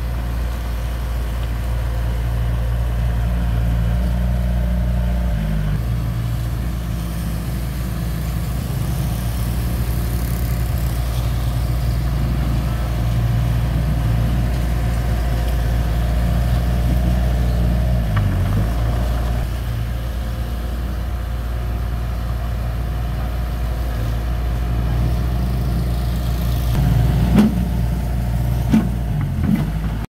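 Komatsu D31P crawler bulldozer's diesel engine running steadily while it works soil, its pitch shifting a couple of times. A few sharp metallic knocks come near the end.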